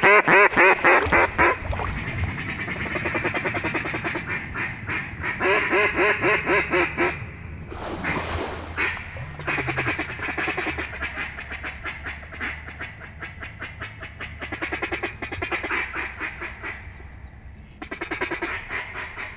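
Duck quacks in fast, repeated runs, loud and close, coming in several bursts with gaps between. A brief rushing noise cuts in about eight seconds in.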